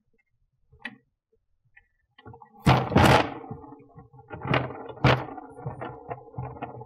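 Tesla Model S plastic frunk tub being pushed and settled into place: a loud scraping rustle about three seconds in, then two sharp knocks and a few smaller clicks as it seats.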